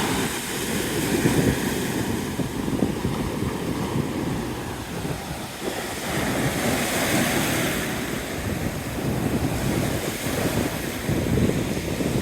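Big surf breaking and washing up a sandy beach, rising and falling in swells, with strong wind buffeting the microphone in a constant low rumble.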